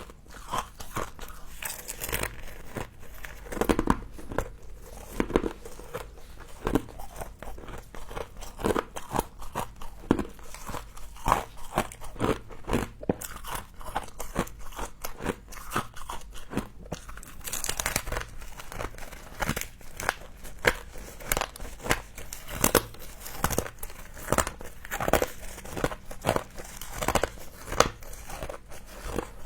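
A person biting and chewing mouthfuls of frost close to the microphone: rapid, irregular crunches, several a second, with now and then a louder bite.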